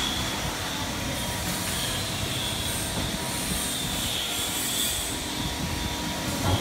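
Steady running noise of a hydraulic CNC turret punching machine, with a constant hiss and no separate punch strokes.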